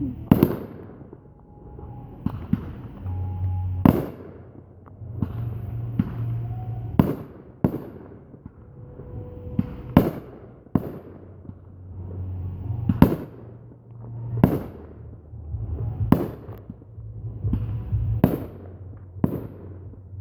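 Aerial fireworks exploding in a steady run of sharp bangs, about one a second, each trailing off in a rumbling echo.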